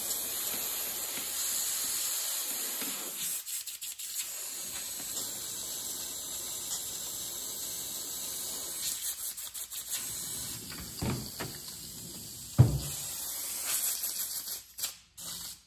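Cheap air spray gun hissing steadily as air and liquid are blown through it, with the white paint being rinsed out. A single short knock comes about three-quarters of the way through.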